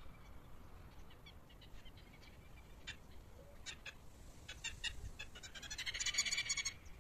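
Southern lapwing calling: scattered sharp notes from about three seconds in that quicken into a loud, rapid chatter near the end, then stop short.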